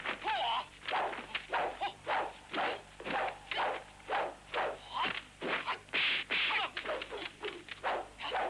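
Kung fu film fight sound effects: a rapid, uneven run of whip-like smacks and swishes of blows and a swung weapon, about two or three a second, with a few short shouts among them.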